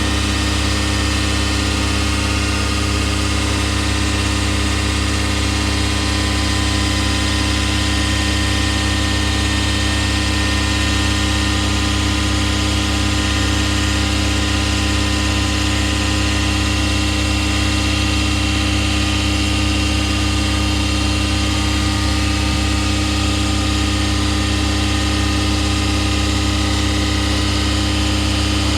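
Jet airliner engines running steadily at one pitch: a heavy low hum with a high, even whine of fixed tones on top.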